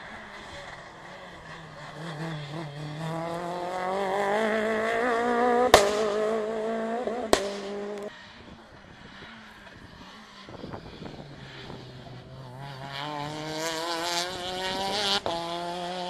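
Rally cars at full throttle: the engine's pitch climbs steadily for a few seconds, is cut by two sharp cracks about halfway through, drops away, then climbs again hard near the end.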